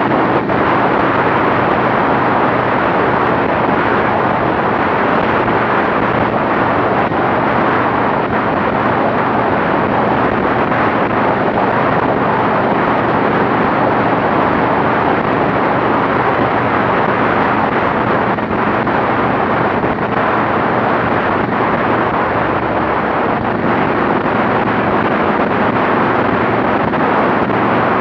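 Steady rush of wind buffeting a motorcycle-mounted camera's microphone at highway speed, with the motorcycle engine's steady drone underneath.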